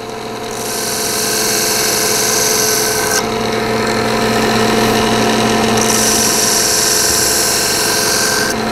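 1x30 belt sander with a Surgi-Sharp strop belt running steadily, a knife's Scandi grind pressed to the moving belt twice, each pass a hissing scrape of about two and a half seconds as the edge is smoothed and polished.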